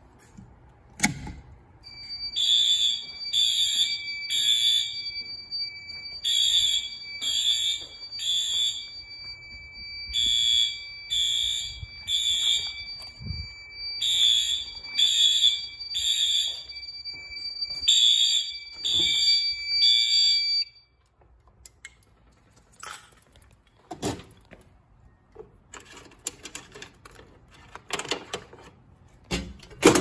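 Fire alarm horns sounding the temporal-three evacuation pattern: groups of three blasts, one group every four seconds, five groups in all, over a steady high tone. The alarm cuts off suddenly about 20 seconds in, and scattered clicks and knocks follow.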